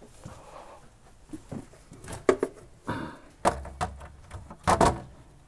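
Several sharp knocks and clunks, loudest from about three and a half to five seconds in, as a metal electrical enclosure is lifted against a wall and hung on two screws.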